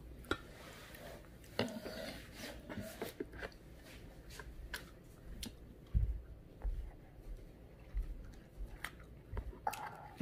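A toddler eating fruit: soft chewing with scattered small clicks of a fork against a plate, and a few dull low thumps in the second half.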